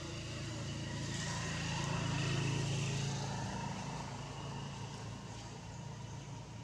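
A motor vehicle passing by, its engine hum growing louder to about two and a half seconds in and then fading away.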